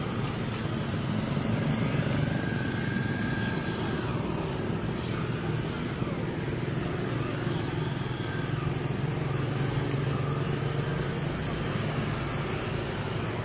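Street traffic: motorcycle and car engines running steadily as vehicles pass through.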